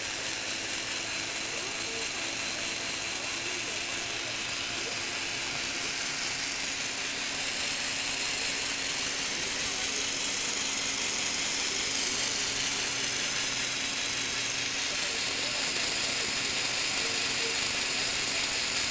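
Lego Technic plastic gear train of a three-speed gearbox running under a Power Functions electric motor: a steady whir of meshing gears over a constant motor hum.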